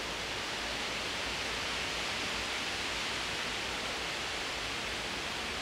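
Steady outdoor background noise: an even hiss with no distinct events and nothing standing out.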